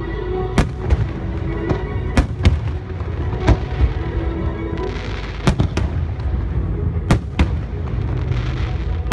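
Aerial firework shells bursting overhead in sharp, irregularly spaced bangs, about eight of them, with music playing underneath and a hiss twice between the bangs.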